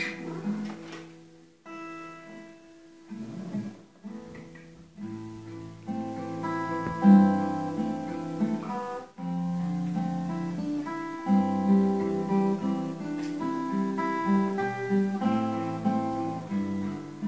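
Acoustic guitar played fingerstyle: a few separate notes and short phrases with pauses between them, then from about five seconds in a fuller, steady picked passage of chords over bass notes.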